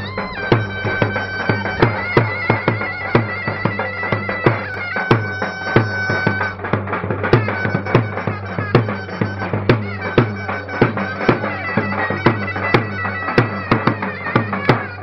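Bagpipe playing a lively dance tune over a steady low drone, with a regular percussion beat under it.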